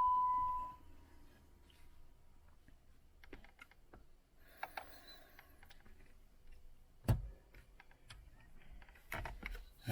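Faint scattered clicks of buttons being pressed on a car's head unit, one louder click about seven seconds in, after a steady high beep fades out in the first second.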